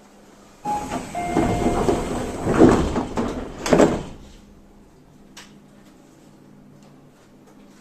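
Passenger doors of a Tobu 30000 series train sliding closed, ending in a loud thud about four seconds in, followed by the steady low hum of the stationary car.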